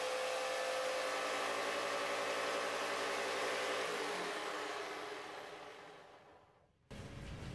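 Corded Ryobi jigsaw, mounted upside down under a bench as a scroll saw, running steadily as it finishes cutting a piece of wood; it is switched off about four seconds in and its motor whine winds down and fades over the next couple of seconds.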